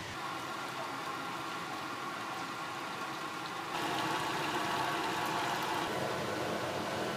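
A thin stream of water pouring and splashing into a large pot of steaming broth: a steady splashing hiss that gets louder about four seconds in.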